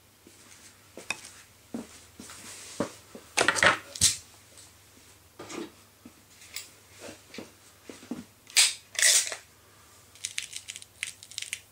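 Baikal IZH MP-53M spring-piston break-barrel air pistol being cocked: scattered metallic clicks and two clusters of louder clacks, then a quick run of small clicks near the end, the rattle of its anti-beartrap safety ratchet.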